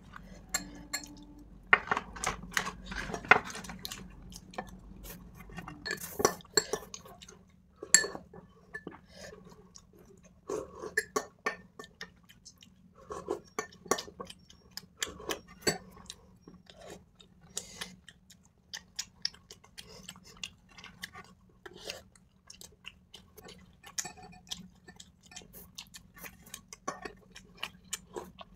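Metal spoons clinking and scraping against glass bowls in quick, irregular taps, with chewing in between, as two people eat idli with sambar and chutney.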